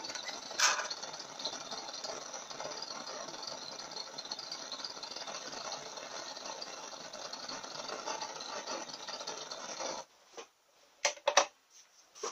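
Gas blowtorch burning with a steady hissing flame while it heats a speedometer drive gear. The flame cuts off suddenly about ten seconds in, and a few sharp clicks follow. A single click comes just after the start.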